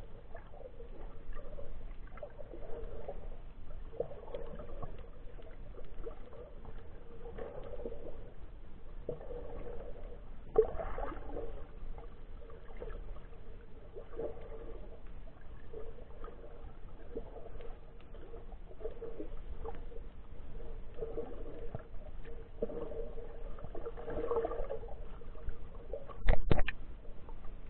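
Muffled sea water heard through a camera held underwater, a wash that swells and ebbs every second or two over a faint steady hum. A short cluster of loud knocks comes about a second before the end.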